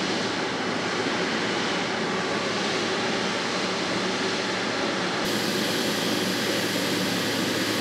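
Jet engines of a taxiing Boeing 777 airliner, a steady, even rush of engine noise with a low hum underneath; the hiss grows brighter about five seconds in.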